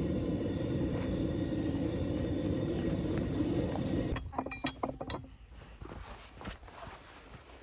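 A steady low rumble cuts off suddenly about four seconds in. Several light metallic clinks follow, from farrier's tools and horseshoe metal being handled.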